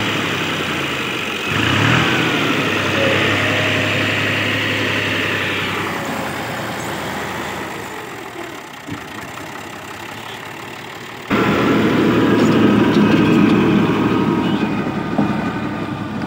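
New Holland Ghazi tractor's diesel engine revving up about a second and a half in, then running steadily under load as it drives a rotavator through the soil. It fades somewhat in the middle, and about eleven seconds in the engine and the rotavator's churning suddenly get much louder and rougher.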